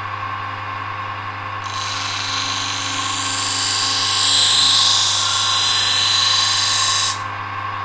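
Electric grinder running with a steady hum. About two seconds in, a steel knife blade is pressed to the abrasive and ground with a loud hiss for about five seconds, reshaping the edge and the broken tip. The hiss stops suddenly near the end.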